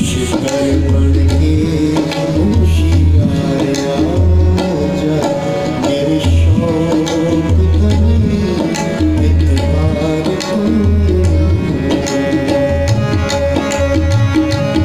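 Instrumental interlude of tabla and harmonium. The tabla plays a steady rhythm of sharp strokes with deep, resonant bass strokes from the bayan, under sustained harmonium chords and melody.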